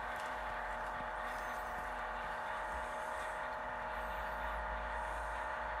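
Factory-fitted sound decoder in a Piko H0 model of the class 240 electric locomotive, switched on with F1 and playing the locomotive's simulated running sound through its small speaker: a steady electrical hum of several held tones at an even level.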